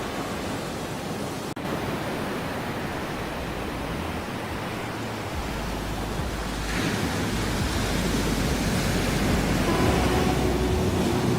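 Ocean waves washing in as a steady, even hiss, with a momentary drop-out about a second and a half in. The surf swells louder about seven seconds in.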